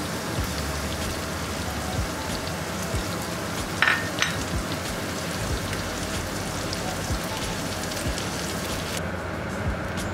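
Salted egg yolk and chopped garlic sizzling in hot oil in a pan while being stirred, a steady fine crackle as the sauce starts to foam. Two louder sharp clicks stand out about four seconds in.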